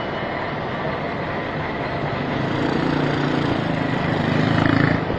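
A vehicle engine running close by over steady street noise, growing louder from about halfway through.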